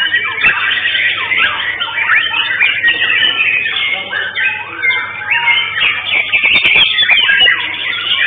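White-rumped shama (murai batu) singing: a rapid, unbroken run of varied whistles and pitch glides.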